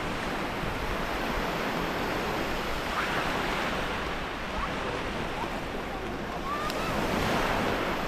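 Sea surf breaking and washing up a stony shore: a steady rushing wash that swells and eases, a little louder near the end.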